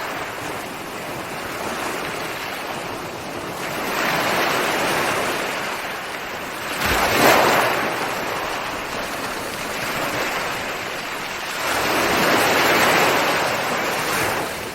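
Ocean surf: waves breaking and washing in, swelling three times, with the loudest crash about seven seconds in.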